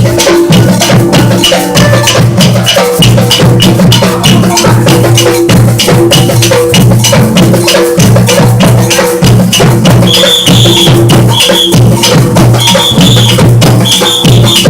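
Samba percussion music: a dense, fast run of drum and shaker strikes over low sustained notes. From about two-thirds of the way through, short high notes repeat over the rhythm.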